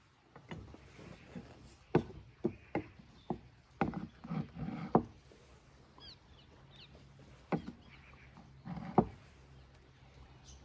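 Metal spoon clinking and scraping against a metal pot and a metal platter while sauce is scooped out and spread over flatbread. A run of irregular sharp taps and clinks, busiest about four to five seconds in, then a few single knocks.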